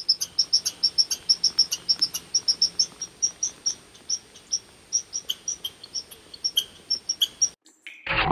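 Crickets chirping in woodland: short high chirps about four a second over a faint, steady high-pitched trill. Near the end they cut off and a loud rushing burst of noise begins.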